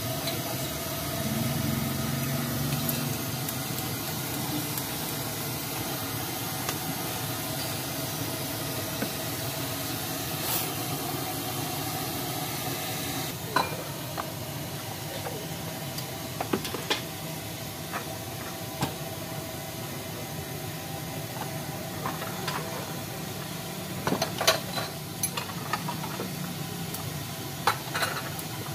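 Spoons and chopsticks clinking against ceramic bowls as bowls of chicken noodles are filled, over a steady hiss. The sharp clinks start about halfway through and come in a quick cluster a few seconds before the end.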